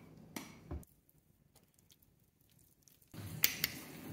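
Wet squishing of raw meat and onion being hand-mixed in a stainless steel bowl, which stops about a second in. Near silence follows for about two seconds, then low background noise with two sharp clicks close together.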